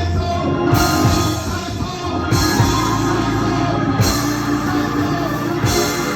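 Live gospel band music with drums and sustained chords, a cymbal crash landing about every second and a half.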